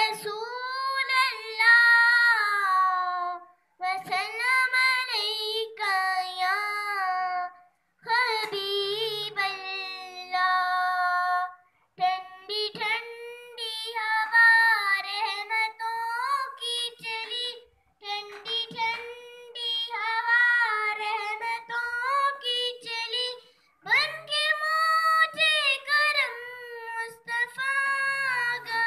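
A young girl singing an Urdu naat unaccompanied in a high voice. She sings in phrases of a few seconds, with short pauses for breath between them.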